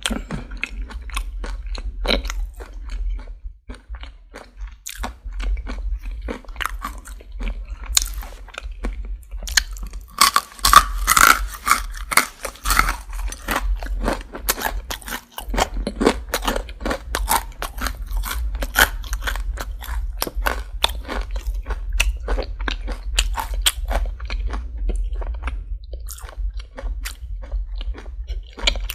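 Close-miked chewing of crunchy Popeyes fried chicken, its breading crackling with many quick crunches throughout. The crunching is densest and loudest about ten to thirteen seconds in, likely a fresh bite, over a faint steady low hum.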